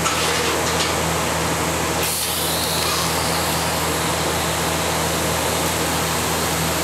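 Steady machine hum with an even electrical buzz, with no change in loudness. A faint high hiss comes in about two seconds in.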